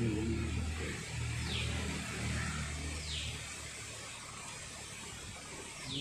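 A steady low hum that slowly fades, with a bird's short falling whistle repeated a few times about a second and a half apart.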